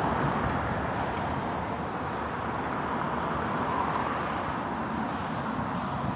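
Tanker lorry's diesel engine running as the lorry pulls out, with a brief hiss about five seconds in.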